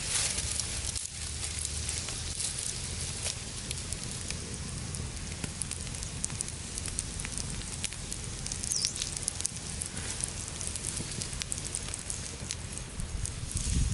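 Wood fire crackling and popping under a stone slab, with sausages sizzling in the oil on the hot stone.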